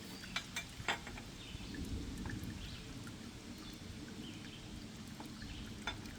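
Hydraulic fluid dripping and trickling out of an opened, leaking excavator hydraulic fitting, with scattered light clicks over a low steady rumble.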